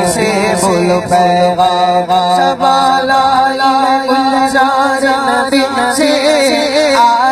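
A man singing an Urdu naat (devotional praise song) solo into a microphone, drawing out long, ornamented, wavering notes.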